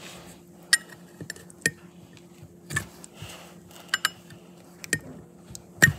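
Sharp metallic clicks and clinks, about six of them roughly a second apart, from tools and the CV axle parts being handled on a workbench while an old axle boot is cut and pulled off. A steady low hum runs underneath.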